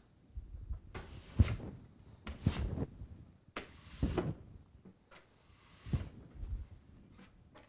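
A run of irregular scrapes and knocks, four or five separate swishing strokes about a second or two apart with a few sharp clicks between them.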